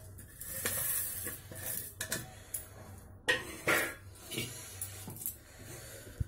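Roasted moong dal tipped from a stainless-steel plate into a steel mixer-grinder jar, then the jar lidded and set on the grinder base: scattered clinks, scrapes and knocks of steel. A couple of louder knocks come about three and a half seconds in.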